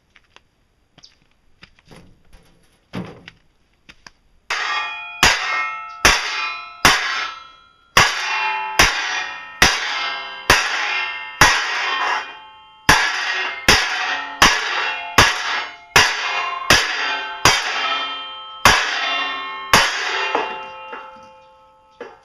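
Claw hammer striking a metal sheet folded over a wooden block, bending it into a channel. About eighteen blows come under a second apart, each leaving the sheet ringing. They start about four seconds in, after a few faint knocks.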